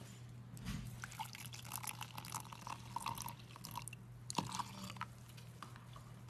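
Water poured from a plastic cup into a stainless-steel mug, splashing onto coffee powder for about four seconds, with one sharp knock a little past the middle.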